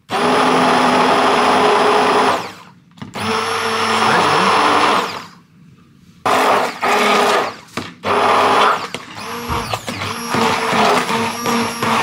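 Electric stick blender running in a bowl in about four bursts, its motor whine rising as it starts and falling as it stops, while it chops lumps of firm, cold butter.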